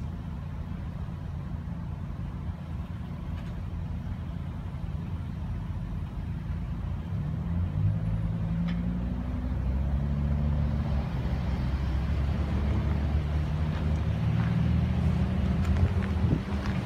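Road traffic on a slushy, snow-covered city street: cars driving past with engine hum and tyres hissing through wet slush. It gets louder over the second half as more vehicles go by close.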